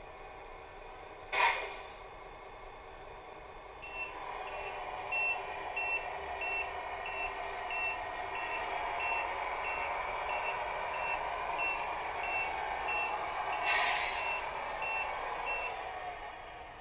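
Electronic reversing beeper from the sound unit of a Tamiya Volvo tow-truck RC model, short high beeps about one and a half a second, over a steady hum. A short air-brake hiss comes about a second in, and another near the end.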